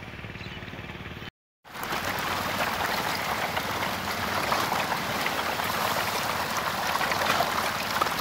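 Hundreds of hybrid magur catfish thrashing and gulping at the surface of a pond as they feed on floating pellets: a dense, even crackle of countless small splashes, like heavy rain on water. Before it, a steady low hum breaks off in a brief dropout a little over a second in.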